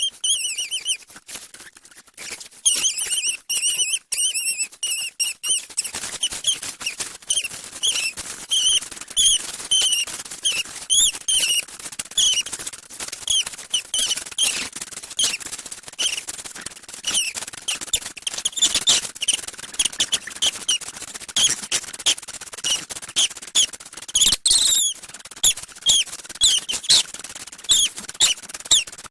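A person making silly high-pitched squeaking noises with the voice: a quick, unbroken string of short squeaks and chirps that slide up and down in pitch.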